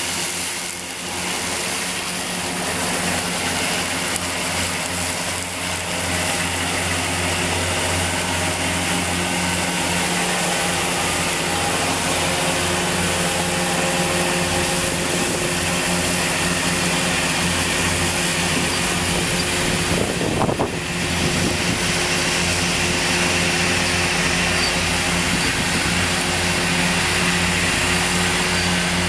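Fendt 724 Vario tractor's six-cylinder diesel running steadily under load while its front and rear Krone EasyCut disc mowers spin through grass, a steady engine hum over a constant hiss.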